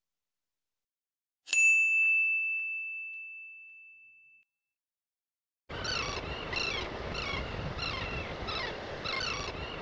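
A single bright chime struck once, a logo sting, ringing out and fading away over about three seconds. After a short silence, outdoor street ambience comes in with a repeated chirping about twice a second.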